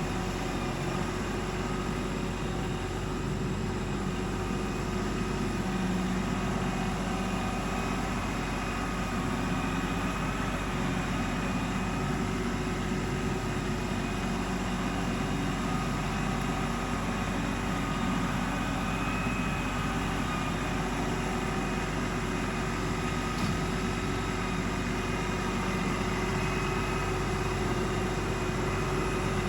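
Diesel engine of an LS XR3135 compact tractor running steadily.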